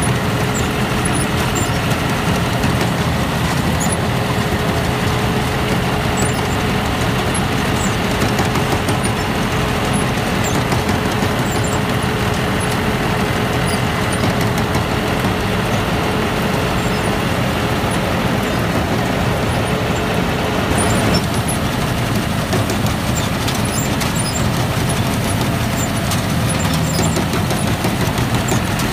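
Tractor engine running steadily under load while driving a Claas Liner 4000 four-rotor hay rake. A steady hum drops out about two-thirds of the way through.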